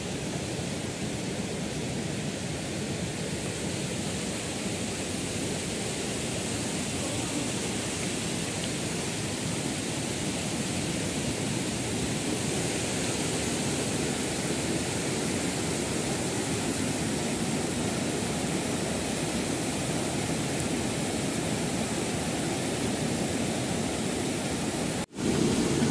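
Mountain stream rushing over boulders: a steady, unbroken noise of white water, which drops out for a moment near the end.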